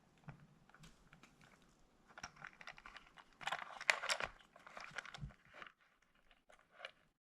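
Small clicks, taps and rustling from die-cast toy cars being handled and set down side by side. The noise is busiest about three and a half to four seconds in, with a couple of soft thumps.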